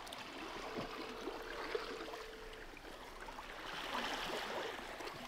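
Low surf washing softly and steadily onto a sandy beach, with a faint steady hum for about two seconds near the start.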